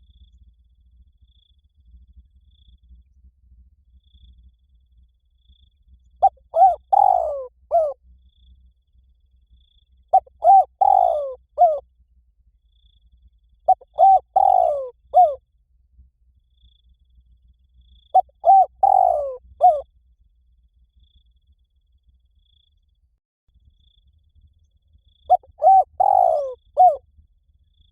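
Spotted dove cooing: five separate phrases of several notes each, spaced about four seconds apart, with a longer pause before the last.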